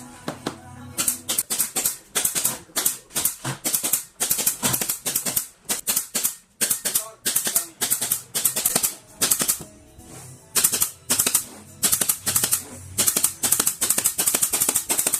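A hand tool working wood in quick, repeated rasping strokes, roughly two a second with short pauses, over background music.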